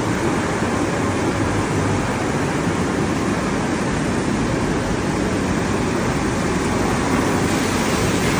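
A machine running: a steady, even rushing noise with no breaks or rhythm.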